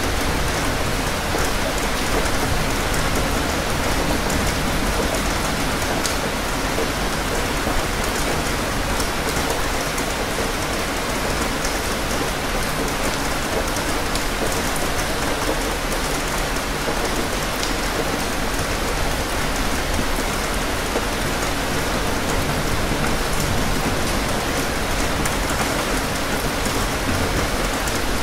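Steady rain falling, an even hiss with a fine patter of drops that does not let up.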